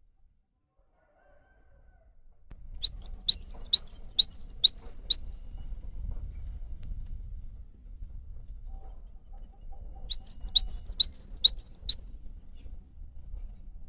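Cinereous tit (gelatik batu) singing two phrases of fast repeated high, sharp notes, about three a second. The first phrase starts about three seconds in and the second comes near the end, over a faint low rumble.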